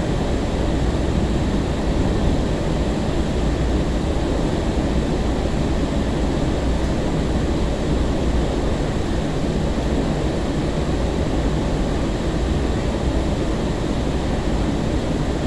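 Steady running noise inside a 2002 Breda LRV3 light rail car in motion: wheels rolling on the rails with a continuous low rumble, under GTO-VVVF traction motor drive.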